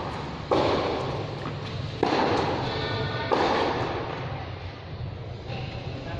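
Tennis balls being struck on a covered court: three sharp thuds over the first few seconds, each ringing on and fading over about a second under the hall's roof.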